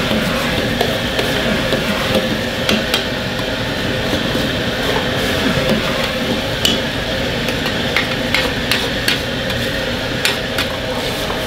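Metal ladle scraping and knocking against a wok while jajang sauce vegetables are stir-fried and tossed over a high gas flame, with a steady rushing of the burner and sizzling underneath. Sharp clinks of the ladle on the wok come now and then, more often in the second half.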